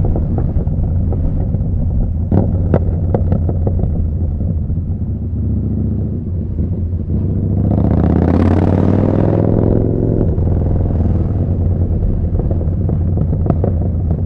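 Yamaha Bolt's air-cooled V-twin running through a Vance & Hines slip-on exhaust at riding speed, a steady low rumble with a few short clicks two to three seconds in. About eight seconds in it pulls harder, the pitch rising, then eases off again about two seconds later.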